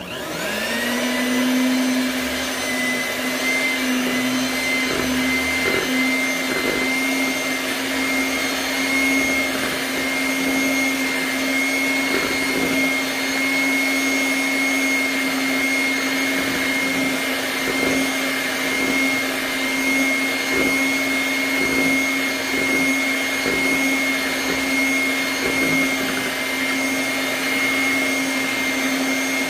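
Electric mixer switched on, its motor spinning up within about a second to a steady whine that runs on evenly without a break.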